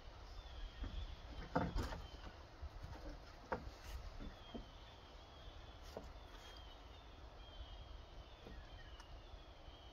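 Wooden boards knocking and bumping as a long sawmill offcut board is lifted and laid across the roof rafters, the loudest knocks in the first few seconds. A bird repeats a short falling call about once a second.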